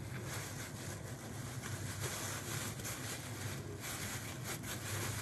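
Steady low hum and hiss of background room noise, with a few faint soft taps and rustles as a sushi roll is rolled up in a bamboo mat.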